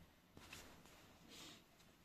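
Near silence with two faint, soft rustles of a thick blanket being shifted, one about half a second in and another a second later.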